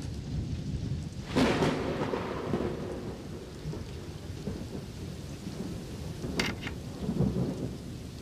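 Steady rain with a thunderclap about a second and a half in that rumbles away over the next second or so. Near the end there are two sharp clicks.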